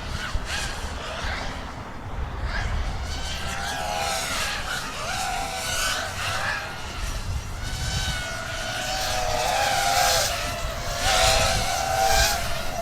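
Several 7-inch FPV racing quadcopters flying, their motors whining and rising and falling in pitch with throttle, over a low rumble.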